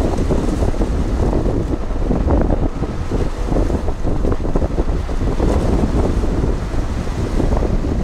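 Strong wind buffeting the microphone, a loud, unsteady rumble, over Mediterranean surf washing against shoreline boulders.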